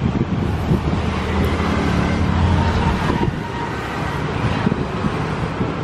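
A motor vehicle's engine running close by over road traffic noise, its low hum swelling to its loudest about halfway through.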